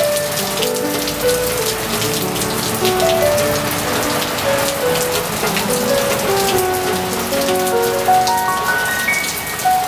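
Steady rain falling, a constant hiss with many fine drop patters, with gentle piano music playing over it.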